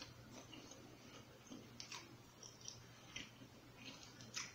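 Faint chewing and wet mouth sounds of a man eating, with a few short soft clicks scattered through it, over a low steady hum.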